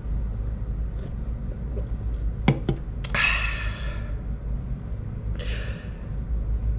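A person exhaling breathily twice, the first time just after a couple of sharp clicks, over a steady low hum.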